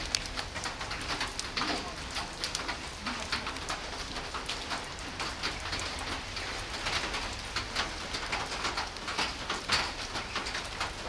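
Steady rain falling, a continuous patter of many irregular drop ticks.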